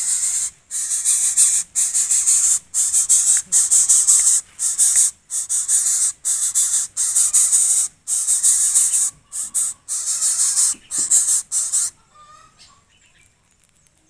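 Greater coucal hissing in rapid repeated bursts, about two a second, with no clear pitch, stopping near the end.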